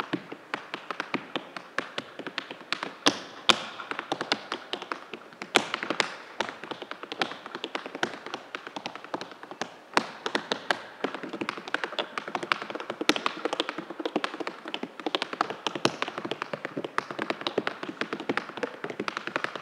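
Tap shoes striking the stage floor in rapid, dense rhythmic patterns with occasional louder accents, unaccompanied by any music: an a cappella tap solo.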